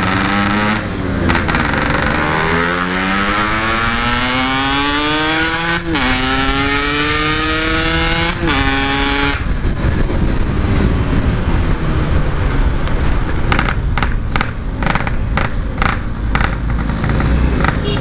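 Yamaha RX-King's 135 cc two-stroke single, through a stock-style Packing Power exhaust, accelerating through the gears: the pitch climbs, drops at a shift about six seconds in, climbs again and drops at another shift, then the engine note falls away into wind and road noise with gusty thumps near the end.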